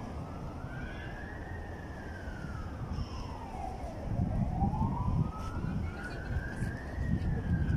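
Emergency-vehicle siren wailing, its pitch slowly rising and falling twice, over a low rumble that grows louder about halfway through.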